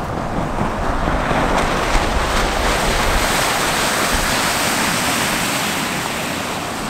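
Motorboat running fast close to the bank: a steady rushing noise of its engine and the spray of its wake, mixed with wind on the microphone, easing off slightly near the end.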